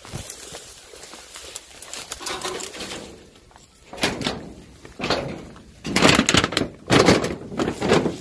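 Leaves and branches rustling as someone pushes through dense brush, in short swishes that grow louder and closer together in the second half.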